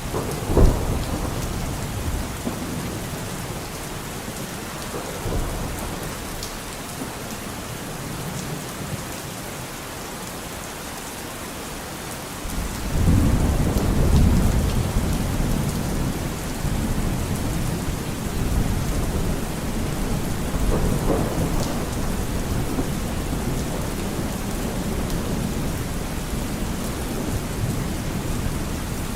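Rain falling steadily with thunder: a sharp clap about half a second in, then a long low rumble that builds about halfway through and keeps rolling.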